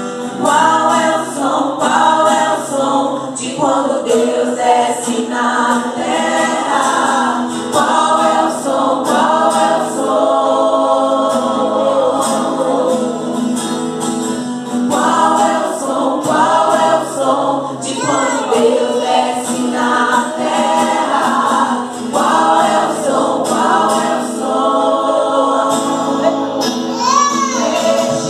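Several women singing a Christian worship song together in harmony, amplified through microphones, with acoustic guitar accompaniment.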